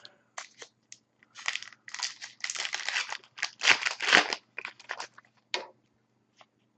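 A trading-card pack wrapper being torn open and crinkled in a run of irregular rustling bursts that stop about two-thirds of the way in.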